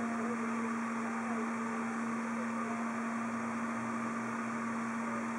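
A steady low electrical hum with an even hiss over it, unchanging throughout.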